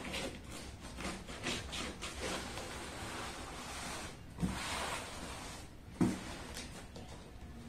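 Quiet scratching and rubbing of fingers picking at packing tape on a cardboard box, with two dull knocks on the box in the second half.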